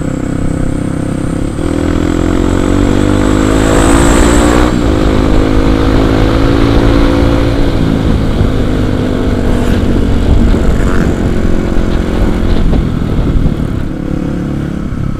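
Kawasaki KLX 250's single-cylinder four-stroke engine under way. It revs up for a few seconds, drops in pitch at a gear change about five seconds in, holds steady, then eases off.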